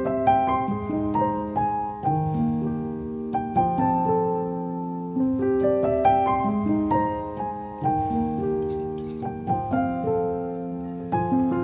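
Piano music: a melody of struck notes over chords.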